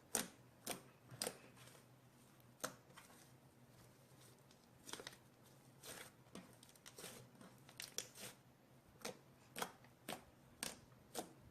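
Fluffy slime made with shaving foam being squeezed and played with by hand, giving faint, sharp pops and crackles as its air bubbles burst, irregularly, about one a second.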